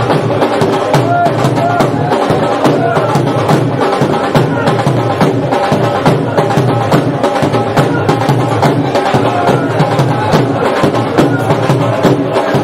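Loud, fast, steady drumming for a celebration, with a crowd of men's voices over it.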